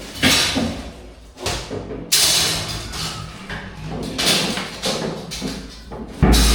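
Knocks and thuds, with rushing, sliding scrapes after some of them, from furniture panels and fittings being handled and fitted; a heavier thump comes near the end.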